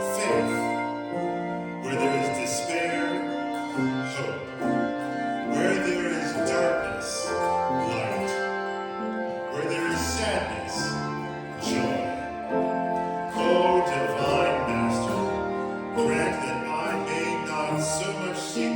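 Handbell choir ringing a slow piece: chords of bells struck together every second or so and left to ring on, overlapping one another.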